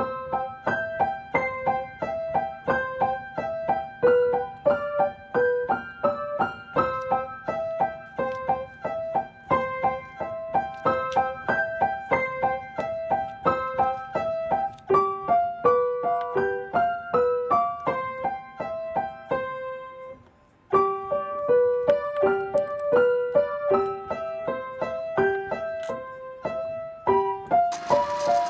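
Background instrumental music: a light melody of quick, evenly struck notes on a keyboard-like instrument, breaking off briefly about two-thirds of the way through. A noisy hiss joins in right at the end.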